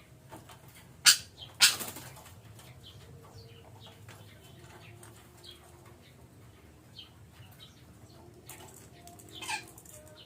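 Parakeets at a decoy: two loud, harsh, sudden bursts about a second in, and a shorter one near the end, over faint scattered chirps.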